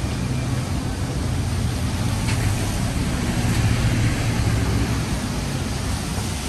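Motor vehicle engine idling close by, a steady low hum over the continuous hiss of city street traffic.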